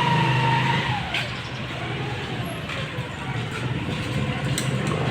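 Motor vehicle engine running, its pitch falling about a second in and slowly rising again near the end, over a steady low hum.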